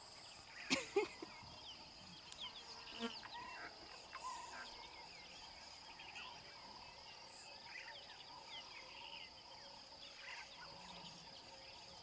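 Steady, high-pitched insect drone with many short bird chirps and calls scattered through it. A sharp knock comes about a second in, with a smaller one about three seconds in.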